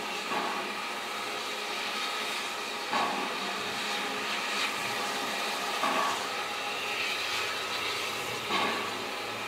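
Replica LBSCR H2 Atlantic steam locomotive No. 32424 'Beachy Head' standing with steam up: a steady hiss of steam with a soft beat about every three seconds.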